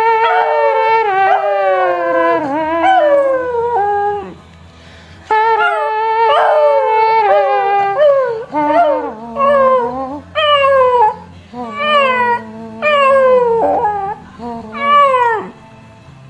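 Schipperke howling along to oldies radio music: long wavering howls, a short break about four seconds in, then a string of shorter howls that each slide down in pitch. Faint music plays underneath.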